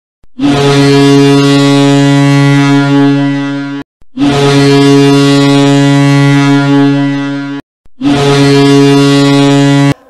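Ice hockey goal horn sounding three long blasts at a steady low pitch, separated by short breaks.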